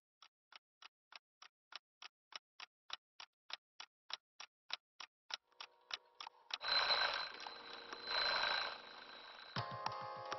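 Alarm clock ticking about three times a second, growing louder, then an alarm ringing in two bursts of about a second each over a soft musical tone. Near the end a beat of music comes in.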